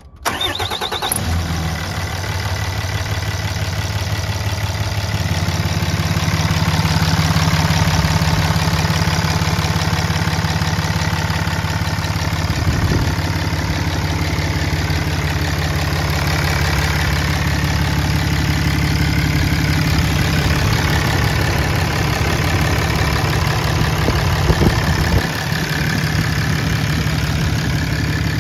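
Cummins 6.7-litre inline-six turbo-diesel engine of a 2010 Dodge Ram 3500 HD idling steadily.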